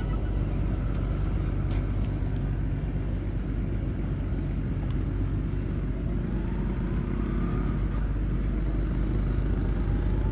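Steady low rumble of outdoor background noise, with a few faint rising tones in the middle.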